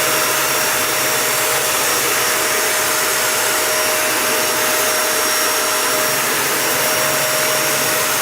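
Dyson Animal 3 vacuum cleaner running steadily over a thin carpet to pick up spilled oatmeal: an even motor and airflow noise with a constant whine.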